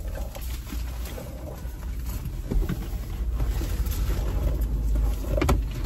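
Steady low rumble inside a car cabin, with a few faint clicks from objects being handled and one sharper click near the end.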